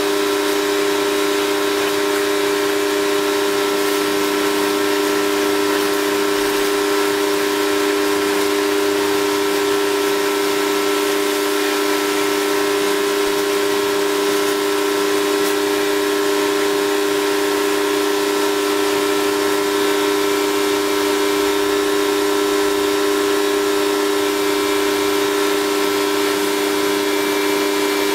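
Small electric pressure washer running: a steady two-note hum with the hiss of its water jet spraying a concrete floor.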